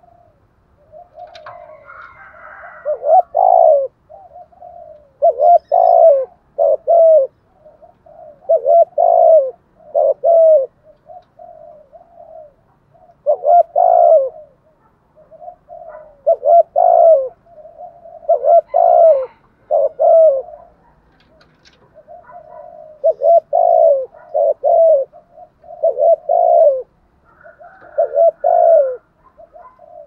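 Caged decoy spotted dove cooing its calling song: repeated phrases of coos, the loud notes sliding down in pitch and coming in twos and threes, with softer coos between them.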